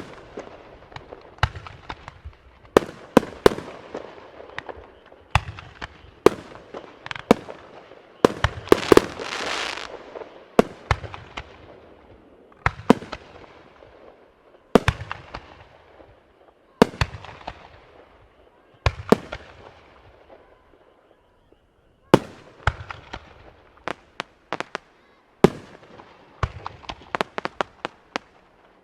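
Fireworks shells bursting overhead in a long irregular run of sharp bangs, about one every second or two, each with a short rumbling tail. About nine seconds in there is a denser hissing, crackling burst, and the bangs come closer together near the end.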